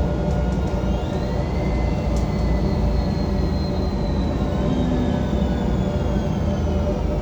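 Transperth bus TP1230 running, heard on board: a loud low rumble, with the fan off. A whine rises in pitch about a second in, holds, and falls away in the second half.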